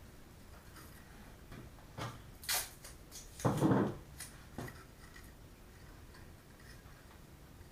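Hands working fuse and tape on a mortar rack: a few light clicks and rustles, the loudest a half-second rustle about three and a half seconds in.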